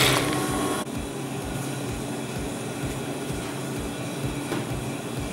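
Steady mechanical hum of a running motor with a faint low throb repeating a few times a second, stepping down slightly in level about a second in.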